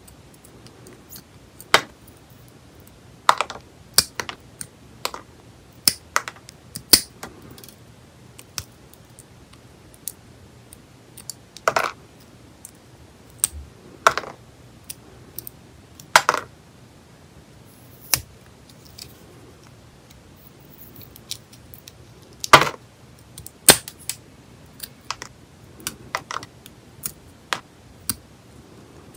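Stainless steel cuticle nippers snipping at nails to clip rhinestones, charms and old gel off extended nails. Irregular sharp clicks and snaps, a few noticeably louder than the rest.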